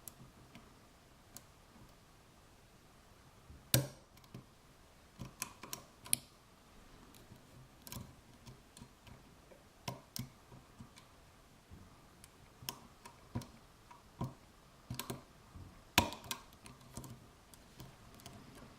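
Lock pick working the pins of a FAC pin tumbler lock under tension: irregular faint clicks and ticks as pins are probed and lifted, with two louder sharp clicks, about four seconds in and near the end.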